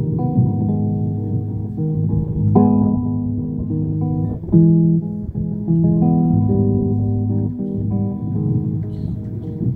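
Solo guitar playing a slow, melodic instrumental, plucked notes and chords held and changing every second or so, mostly in a low-to-middle register.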